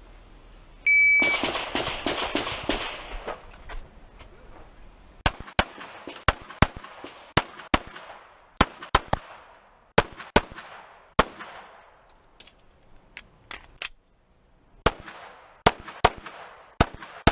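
Shot timer beeps once, then a pistol fires a fast string of shots through a USPSA stage. A dense volley comes first, followed by shots in quick pairs and singles a few tenths of a second apart, with short pauses between arrays as the shooter moves.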